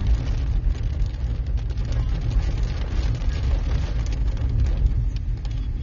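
Steady low rumble of a vehicle driving fast on a rough dirt road, heard from inside the cab, with many scattered light ticks on top.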